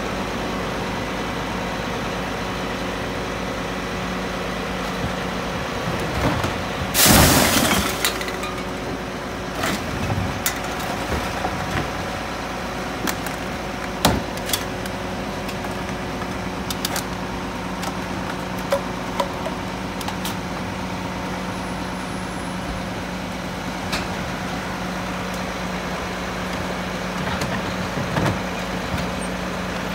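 Mack LEU garbage truck's engine idling steadily, with a loud hiss lasting about a second early on the way in and scattered short knocks from a plastic wheeled cart being handled beside it.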